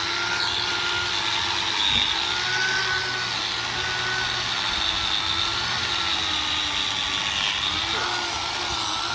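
A motor running steadily with a whine that wavers slightly in pitch.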